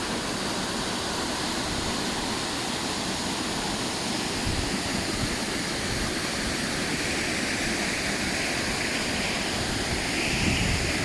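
Waterfall on a beck, a steady rushing of water pouring through a narrow rock channel.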